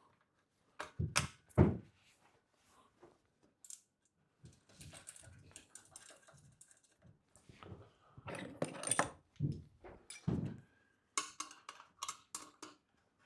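A bolt and nut being fitted through a bed-frame bar: two sharp knocks about a second in, then irregular clicking and clattering of the parts being handled.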